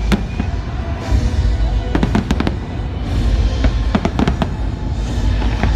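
Fireworks exploding: sharp bangs and cracks, one at the start, then a cluster about two seconds in and another around four seconds, over a steady low rumble.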